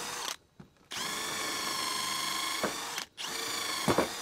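Bosch GSB 185-LI 18 V cordless drill, hammer mode off, boring into a wooden board with a multi-material bit. Its motor whine runs in three bursts, stopping briefly about half a second in and again about three seconds in, with a sharp knock near the end.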